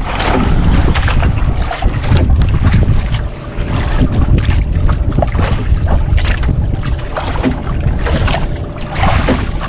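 Wind buffeting the microphone over waves slapping and washing against the hull of a small outrigger boat, a heavy, gusty rumble.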